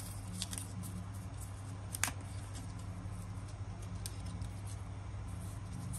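Small clicks and light rustling of a plastic lens-protector case and its backing card being handled, with one sharp click about two seconds in.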